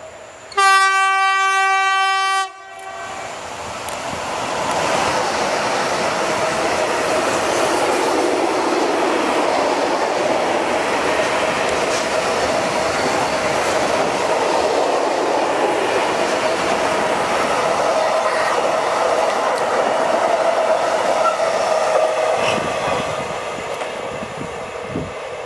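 Bombardier TRAXX electric freight locomotive (E186) sounds one horn blast of about two seconds, a single steady tone. Then a long train of loaded tank wagons rolls past with steady wheel-on-rail rumble and clatter, fading near the end.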